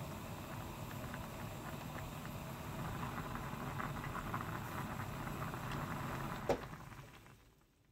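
Kimchi ramyeon and rice porridge boiling hard in a small aluminium pot on a gas burner: thick bubbling and popping over a steady low rush. A single sharp click comes near the end, and then the sound fades away.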